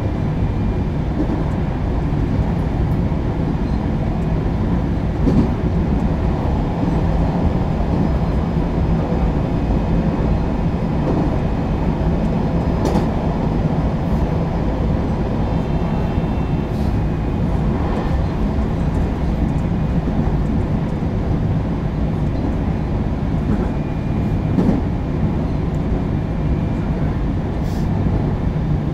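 Cab-car running noise from inside a JR West 223 series 0 electric multiple unit (motor car with Toshiba GTO VVVF traction equipment) travelling at speed: a steady rumble of wheels and running gear on the rails. A few sharp clicks and faint, brief high tones come and go.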